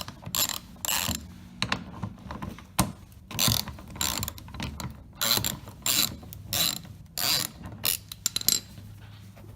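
Ratchet wrench with a 10 mm socket clicking in a run of short back-and-forth strokes, loosening a bolt under the car.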